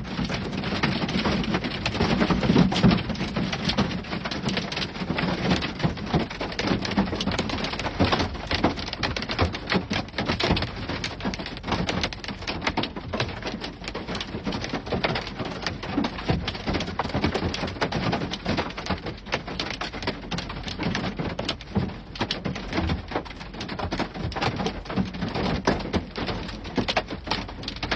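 Heavy rain falling, a dense, steady patter of drops.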